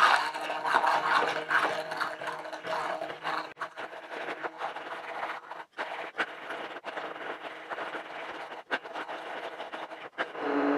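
Red KitchenAid immersion blender running in a stainless steel saucepan, puréeing cooked red peppers, onion and garlic in chicken stock into a coulis. It starts abruptly, breaks off briefly several times, and stops about ten seconds in.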